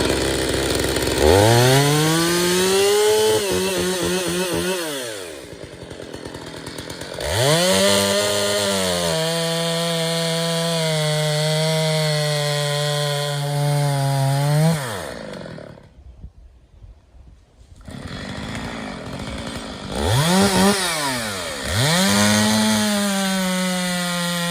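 Two-stroke petrol chainsaw revving up to full throttle and running at high speed, then dropping back, several times over. It holds a steady high pitch for about five seconds near the middle and again near the end, with a short lull of about two seconds between.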